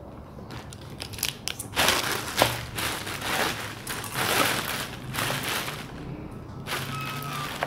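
Plastic courier mailer bags and wrapping crinkling and rustling as they are handled and unwrapped, in a series of irregular bursts.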